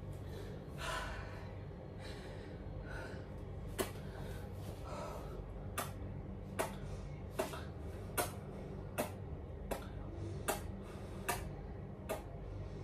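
A series of sharp, evenly spaced clicks, about one every 0.8 s, starting about four seconds in, over a steady low hum. A short breath sounds about a second in.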